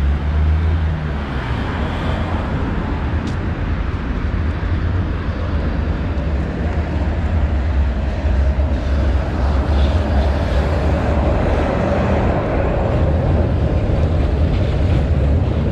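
Steady city road traffic: cars passing on a wide boulevard with a continuous low rumble, and a tram drawing near in the second half.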